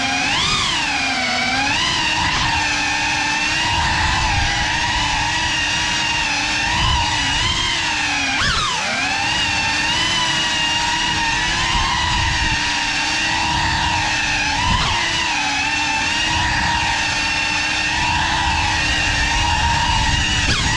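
GEPRC Cinelog35 cinewhoop's 6S brushless motors whining through its ducted props in fast flight, the pitch rising and falling with the throttle. About eight and a half seconds in the whine drops sharply and snaps back up.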